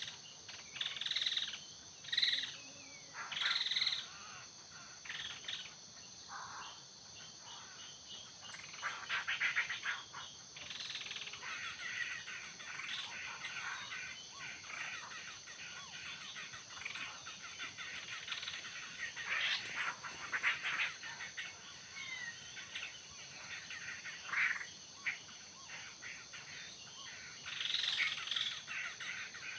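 Laughingthrushes calling in repeated bursts, loudest in the first few seconds and again near the end, over a steady high insect drone.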